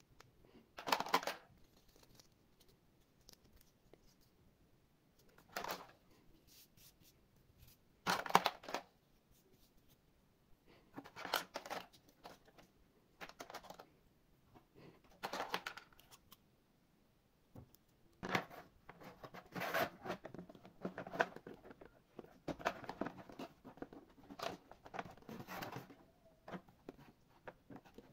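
Short, noisy scraping and crinkling strokes at irregular intervals, a few seconds apart at first and then coming close together in the second half.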